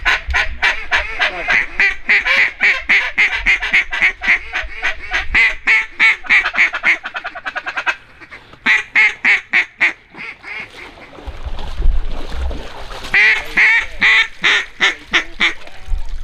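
Hand-blown duck call worked in long runs of fast, loud quacks, about five a second, to bring in ducks. The calling pauses around eight seconds in and again a little after, then one last run near the end.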